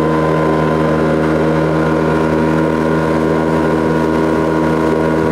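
Boat motor running steadily at a constant speed, an even hum that does not rise or fall.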